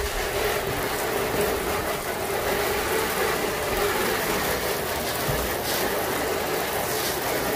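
Water spraying from a garden hose nozzle onto the underside of an open car hood, rinsing off soap and degreaser residue: a steady rushing spray of water on the painted sheet metal that starts suddenly at the beginning.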